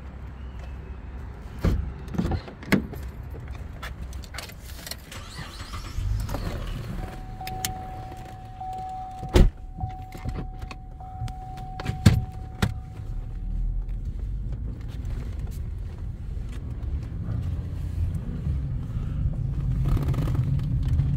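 Cadillac being started and left idling, a low steady engine rumble that begins about six seconds in. Clicks and a few sharp knocks from the doors and controls, and a steady warning tone for several seconds just after the engine starts.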